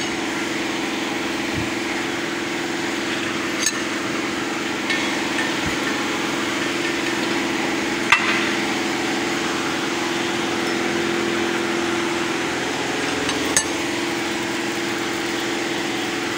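A few sharp metal clinks, about four, spaced seconds apart, as a leaf-spring U-bolt is tightened closed in a bench vise, over a steady mechanical hum.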